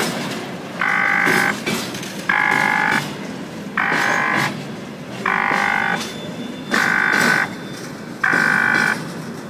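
A horn sounding in even, regular blasts, each just under a second long, about every second and a half, over the rumble of traffic.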